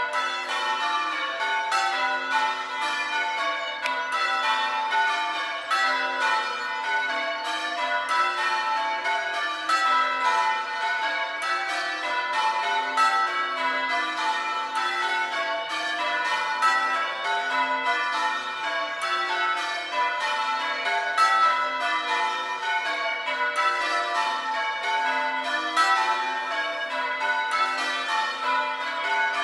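A ring of six church bells (about 7 cwt, tenor in A) being rung in changes, struck one after another in an unbroken, even rhythm, each stroke leaving a ringing tone that overlaps the next.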